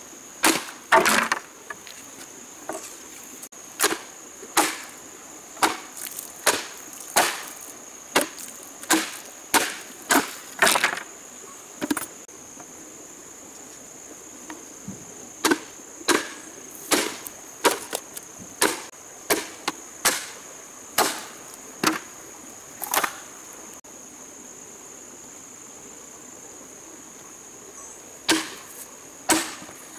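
Machete chopping into green bamboo: sharp woody knocks about one a second, in two long runs with a pause of a few seconds between them, then a longer pause and two more blows near the end. A steady high insect buzz runs underneath.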